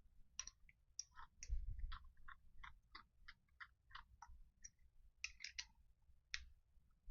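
Faint, light metallic clicks and taps, a few a second and irregular, as a slitting saw and its end cap are fitted onto a steel arbour and the bolt is done up.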